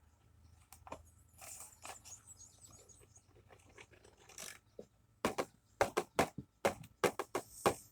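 HP inkjet printer starting up after being switched on: faint mechanical noises at first, then a quick run of sharp clicks and clacks in the last three seconds as its mechanism moves.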